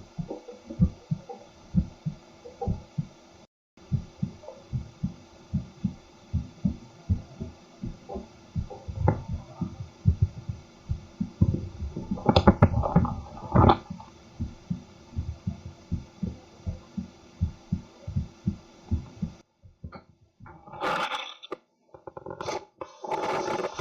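A man's heartbeat heard through a stethoscope microphone: a steady run of short, low lub-dub beats over a faint hum, with a louder burst of noise about halfway through. A few seconds before the end the beats and hum stop and give way to louder, irregular rubbing and scraping noise.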